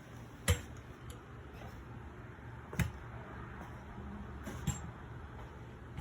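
Three short, sharp knocks or taps over a steady low hum, the first about half a second in, the next two roughly two seconds apart.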